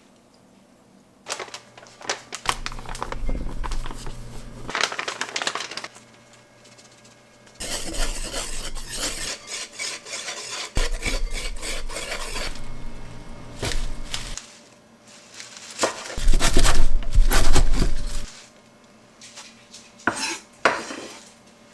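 Dishes, pots and cutlery clattering and clinking in several irregular bouts, with short quiet gaps between them, as in kitchen work.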